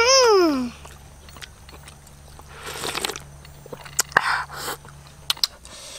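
Person eating snake soup with the fingers: chewing and mouth sounds with a few small clicks. It opens with a loud, short call that rises and then falls in pitch.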